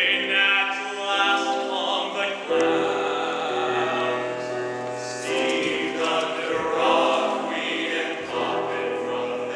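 Mixed chorus of a stage musical cast singing a show tune together, with held notes that change every second or two.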